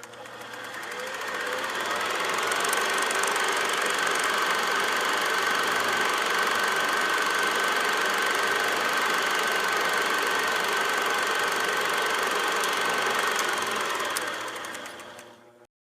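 Super 8 film projector running: a rapid, even mechanical clatter with a steady whine, fading in over the first couple of seconds and fading out near the end.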